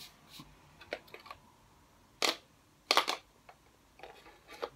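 Scattered clicks and knocks from handling a giant chalk pencil and its chalks while they are being fitted into the pencil's storage compartment, with two louder clacks about two and three seconds in.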